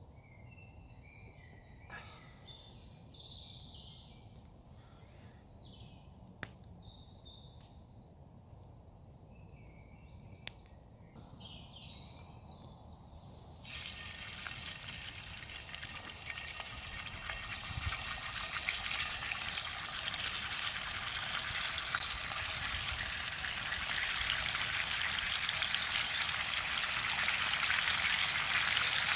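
Woodland birds singing, with a few sharp clicks. About halfway a sizzle starts suddenly: bacon rashers frying in a cast iron skillet over a campfire, growing louder as more rashers are laid in.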